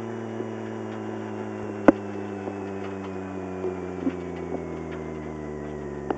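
Mk2 Ford Escort rally car's engine running steadily at low revs, heard from inside the cabin, its pitch easing down slightly. A sharp knock about two seconds in and a few lighter ticks.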